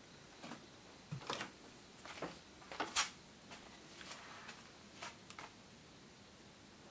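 Soft footsteps and knocks on a wooden floor, a scattered run of taps over about five seconds, the loudest about three seconds in.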